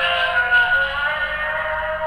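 Electronic monster cry played through the DX Earth Garon toy's small speaker, one of its long-press sound effects: a drawn-out call of several tones, held and slowly fading.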